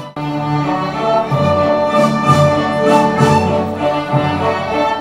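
An orchestra's string section playing, violins to the fore, with the ringing phone edited out. The music breaks off very briefly right at the start, then runs on.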